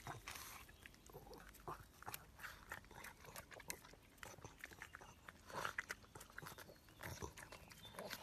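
A pug sniffing and snuffling close to the ground, with short clicks of its mouth as it chews a blade of grass, in irregular bursts.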